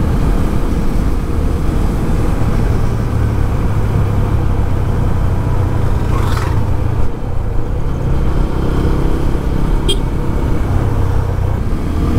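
Single-cylinder engine of a TVS Apache 200 motorcycle running steadily at road speed, with wind rumbling on the helmet-mounted microphone. It eases off briefly about seven seconds in, then picks up again.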